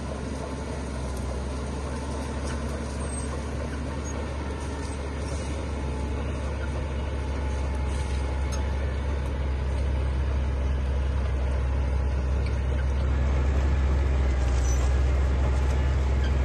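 Heavy diesel engine of earthmoving machinery running with a deep, steady drone that grows gradually louder.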